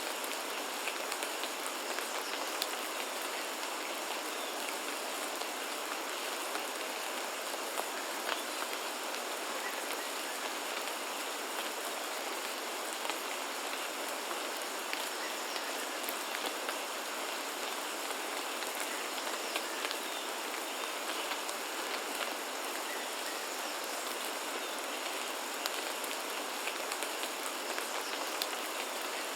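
Steady rain falling, with many small drops ticking on surfaces.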